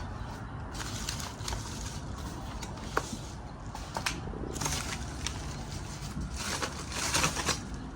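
Packaging rustling and crinkling as park pieces are unwrapped and handled, with a few sharp clicks and light knocks as pieces are set down.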